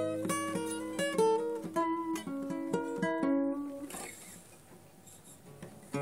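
Instrumental music on a plucked string instrument: single picked notes ring over held bass notes, then die away about two-thirds of the way through into a brief quiet pause, and the playing starts again at the very end.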